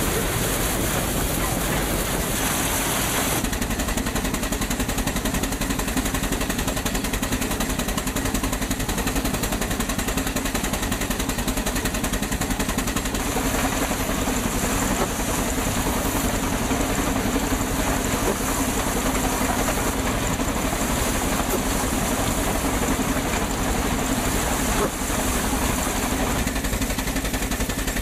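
Belt-driven threshing machine at work: a steady, dense mechanical din from the running thresher and its straw blower. The sound changes abruptly a few seconds in and again about halfway through.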